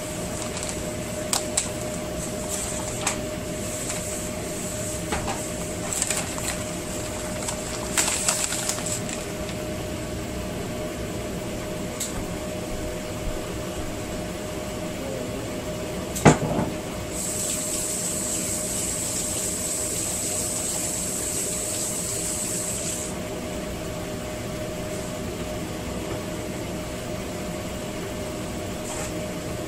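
A steady machine hum with a constant low tone, under scattered clicks and knocks of kitchenware; one sharp knock about sixteen seconds in, and a hiss from about seventeen to twenty-three seconds.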